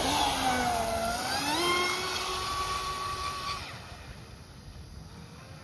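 Fast electric RC boat (an M700 on a 4S battery) whining under throttle: the motor's pitch dips briefly, then climbs and holds high as the boat runs out, and fades away about three and a half seconds in.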